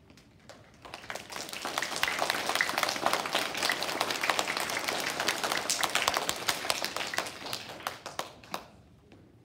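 A group of seated children clapping. The clapping starts about a second in, builds quickly and dies away near the end.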